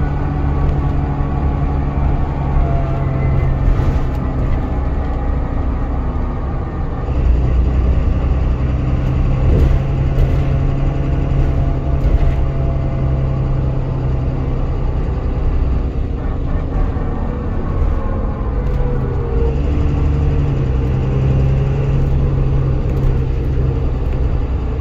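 Dennis Trident 2 double-decker bus on the move, its diesel engine and drivetrain heard from the upper deck. The engine note steps up and down a few times, with a few rattles from the bodywork.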